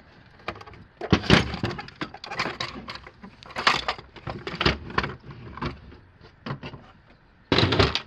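Hard plastic parts of a Hayward pool-cleaner body knocking and scraping as the top shell is handled and lifted off its base: irregular knocks and clatter, with the loudest knock just before the end.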